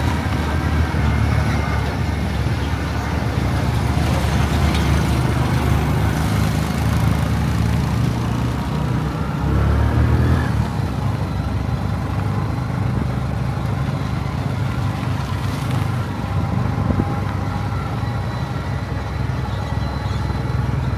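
Vehicle engine running steadily with road and wind noise, heard from on board a moving vehicle, briefly louder about ten seconds in.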